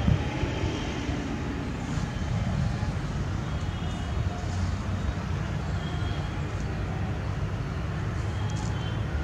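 Steady low outdoor rumble, even throughout, with a few faint short high tones over it.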